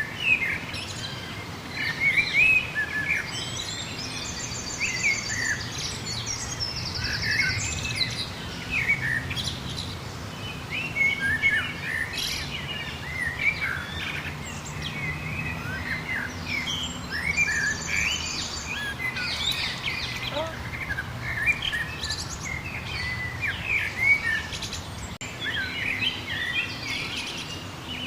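A chorus of several wild birds chirping and singing, short overlapping calls and whistles without pause. A few very high, rapid trills come through now and then, over a low steady background hum.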